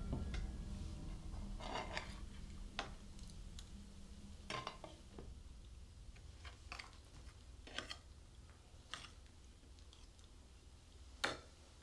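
Spoons clinking and scraping on plates and enamel mugs during a quiet meal: about ten scattered light clinks, the sharpest near the end, over a low steady rumble of room tone.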